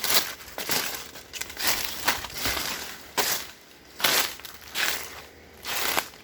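Footsteps crunching and rustling through dry leaves and forest undergrowth, as irregular crunches about one or two a second.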